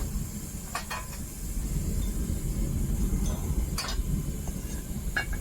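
Homemade propane furnace burner running with a steady low rumble and hiss, with a few light clinks about one, four and five seconds in.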